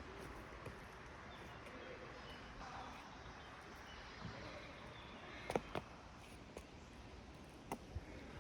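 Faint background hiss with a few light clicks or taps, coming in two pairs a little past halfway and near the end.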